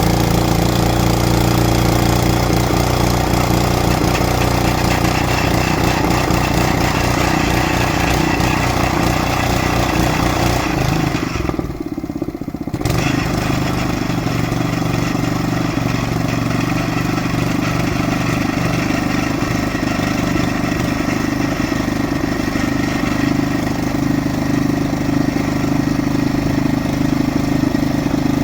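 Geological exploration drilling rig running steadily with a low, even engine-like drone. About twelve seconds in, the higher part of the sound briefly drops away and it dips a little before it carries on as before.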